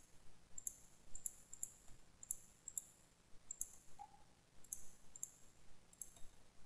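Computer mouse button clicking, about a dozen faint, light, high clicks at an uneven pace, some in quick pairs, as line segments are picked one after another for trimming in CAD software.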